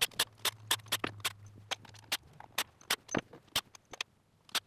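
Rapid sharp clicks of tool work as bolts are backed out of an engine's timing chain cover, about four or five a second and thinning out near the end, over a low hum that fades about halfway through.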